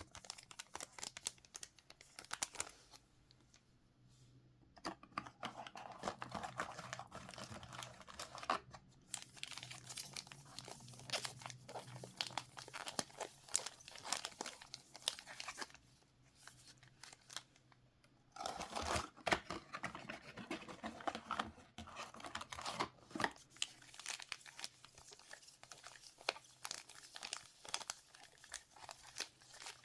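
Plastic trading-card pack wrappers crinkling and tearing as they are opened by hand, with scattered sharp clicks in between and a couple of short pauses.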